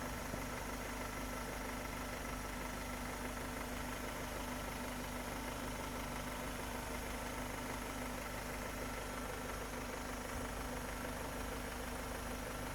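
Car engine idling steadily and evenly, now running smoothly after a faulty ignition insulator was replaced to cure misfiring and hesitation.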